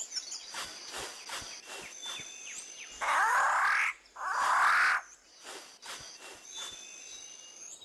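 Riflebird (bird of paradise) making two loud harsh, rustling sounds about a second each, a short pause between them, over a background of high forest insect and bird chirps.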